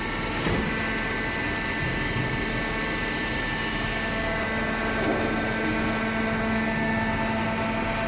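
Hydraulic horizontal cardboard baler running: a steady machine hum with a whine over it. Its low tone cuts back in about half a second in and then holds.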